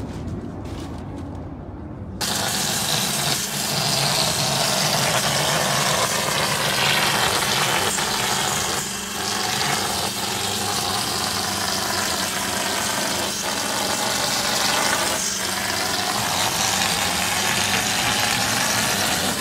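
Euromair Mixpro 28 plaster machine running. About two seconds in, a loud, steady air hiss starts as its spray gun projects gypsum plaster onto a wall, with the machine's steady hum underneath.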